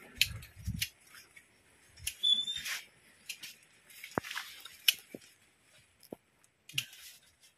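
Tomato plants being pruned of their leaves: scattered sharp clicks and snaps of leaf stems coming off amid rustling foliage, with a short high squeak about two seconds in.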